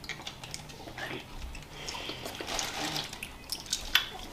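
Giant gummy candy being chewed, with wet squishy mouth sounds and many small sticky clicks.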